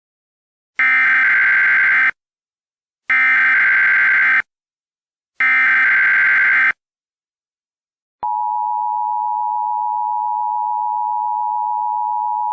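Emergency Alert System tones: three identical SAME data header bursts, each a little over a second long with about a second between them, then the steady two-tone EAS attention signal starting about eight seconds in. Together they mark the start of a new emergency alert.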